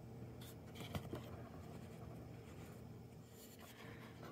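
Faint handling sounds of beads and their packaging: a few light clicks in the first second and a half, then a soft rustle about three and a half seconds in.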